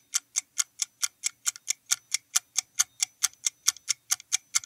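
Countdown timer sound effect: a clock ticking evenly, about four to five ticks a second, while the time to answer runs out.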